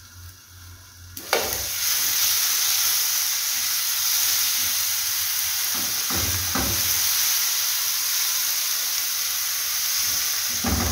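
Tomatoes and chili frying in a pan: muffled at first under a glass lid, then a loud, steady sizzle from about a second in as the lid comes off, with a wooden spatula stirring the mixture.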